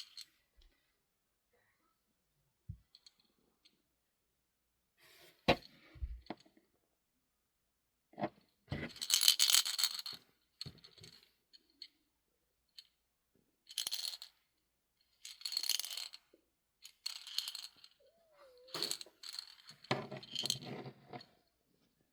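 A vintage Fisher-Price lamb wrist rattle shaken in short bursts, with a bright, jingly rattle. The bursts are separated by quiet gaps and a few knocks from handling, and the loudest burst comes about nine seconds in.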